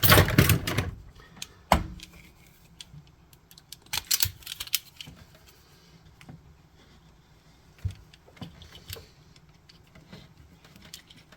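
Small clicks and light rattles from handling wires, connector pins and hand tools, with a louder clatter at the start and a cluster of clicks about four seconds in.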